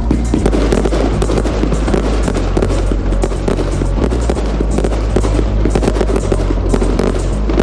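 Music with a steady bass line, mixed with the rapid crackling and popping of fireworks going off in quick succession.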